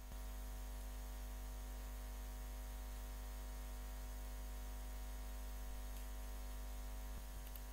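Steady electrical mains hum with a stack of even overtones, over faint hiss.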